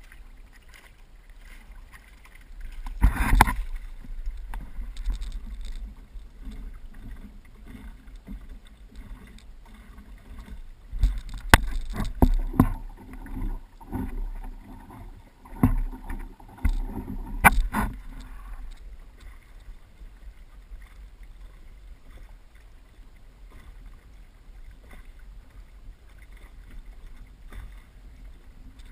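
Water sloshing and slapping against the wooden hull of a small sailing canoe under way, over a low steady rumble. The louder splashes come a few seconds in and several times between about 11 and 18 seconds in, then it settles to a gentle wash.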